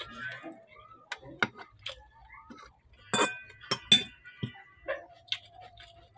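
Cutlery clinking against a dish: a string of sharp, separate taps, the loudest a little past the middle.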